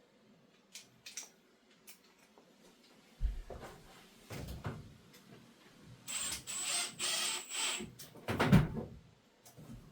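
A few knocks and clatters of handling, then a cordless drill-driver running for about two seconds, about six seconds in, driving a pipe-clip screw into a wall plug, followed by a sharp knock.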